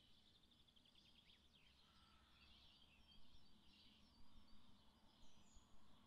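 Faint birdsong from several songbirds in a forest, high twittering notes and trills overlapping, with a quick run of descending notes about a second in.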